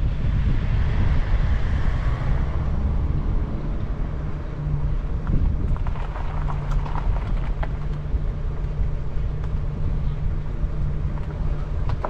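Car driving: a steady low engine and road rumble with a constant hum.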